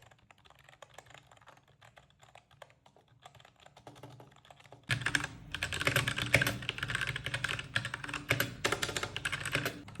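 Fast typing on computer keyboards: for about five seconds soft, quiet keystrokes on a membrane keyboard, then from about five seconds in much louder, sharper keystrokes on a mechanical keyboard.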